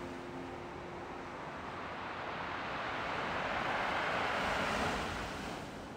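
Sea surf: a wave rushing in, swelling to its loudest a few seconds in and then fading away. The held notes of a tune die away within the first second.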